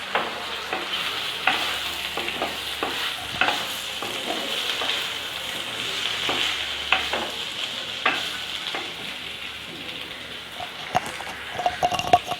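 Boiled raw banana pieces and shallots sizzling in sesame oil in a clay pot, stirred with a spoon that scrapes and taps against the pot at irregular intervals over a steady frying hiss.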